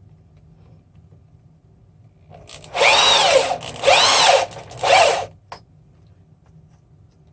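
Handheld power drill boring a button hole through 2 mm plexiglass (acrylic) sheet, run in about three short loud bursts a little over two seconds in, its whine rising and falling with the trigger. A single click follows just after.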